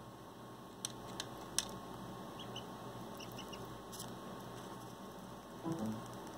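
A duckling preening on a paper notebook: three sharp clicks of its bill in the first couple of seconds, then a few faint high peeps, and a brief, louder low sound near the end, over a steady electrical hum.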